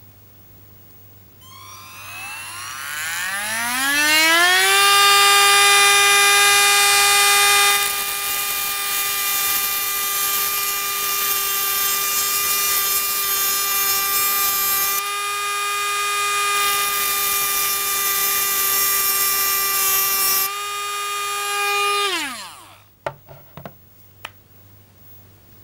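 Dremel Stylus cordless rotary tool with a cut-off wheel spinning up with a rising whine, then running steadily at high speed with a hissing grind as the wheel cuts through a thin metal piece. It winds down quickly near the end, followed by a few light clicks.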